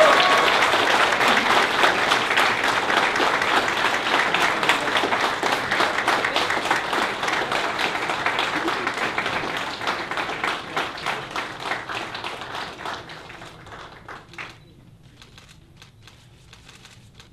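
Audience applauding, dense clapping that thins out and fades over the last part, dying away about fourteen seconds in, with a few last scattered claps near the end.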